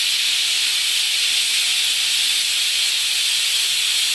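Bajaj stovetop pressure cooker letting off steam through its weight valve in a loud, steady hiss: a cooker 'whistle', the sign it has come up to pressure. The hiss begins abruptly.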